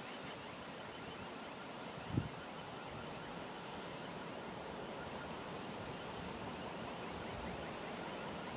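Faint, steady running noise of a Stadler FLIRT diesel multiple unit approaching from a distance, growing slightly louder. A brief wind bump hits the microphone about two seconds in.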